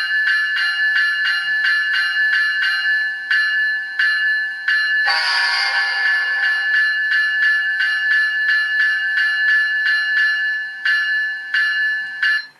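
An ESU LokSound GE GEVO sound decoder in an HO-scale ES44AC model is ringing the locomotive bell through its small speaker. The automatic e-bell and the regular bell sound play over each other, so the strikes double up unevenly in a double-bell echo: a function-mapping fault in the sound file. A horn blast sounds about five seconds in for under two seconds, and everything cuts off suddenly near the end.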